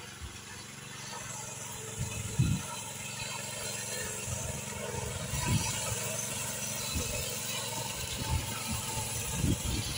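The small walk-behind tractor engine of a homemade trike running steadily and growing louder as the trike comes closer across boggy ground. A few low thumps are mixed in, the loudest about two and a half seconds in.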